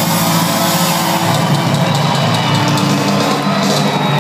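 Live rock band playing hard rock: drum kit, electric guitars and bass at full volume, heard from the audience.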